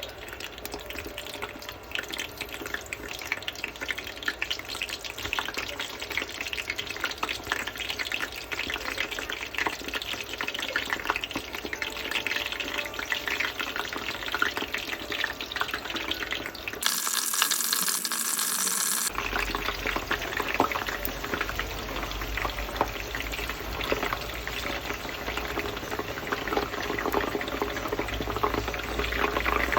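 Food sizzling and crackling in a hot frying pan, a dense, steady crackle. A bit over halfway through it gives way to a brighter hiss for about two seconds, then the sizzling resumes.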